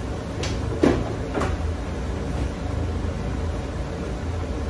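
Steady rush of rice boiling hard in a large pot on a gas hob, with three short kitchen knocks about a second in, the middle one the loudest.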